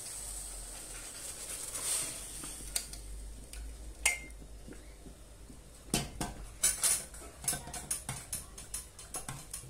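Stainless-steel pots knocking and clinking together as thick broccoli purée is poured from a large pot into a saucepan, with one ringing metal clink early and then a quick, irregular run of light metal taps and clicks over the last few seconds.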